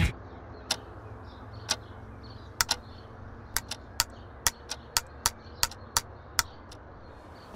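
Sharp clicks from a pen handled at a desk, widely spaced at first, then quicker and more rhythmic from about halfway through, over a low steady hum.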